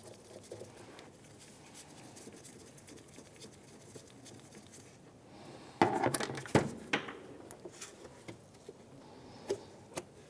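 Plastic push-pin clips being worked loose with a Phillips screwdriver and pulled from a car's plastic engine-bay cover: faint scattered clicks and rubbing, then a louder cluster of plastic knocks and clatter about six seconds in, and a couple of sharp clicks near the end.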